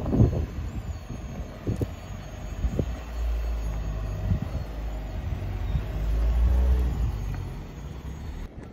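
INEOS Grenadier Fieldmaster's engine running at low crawling speed as the 4x4 picks its way over rocks, a low rumble that swells twice as it climbs. A couple of short knocks in the first few seconds.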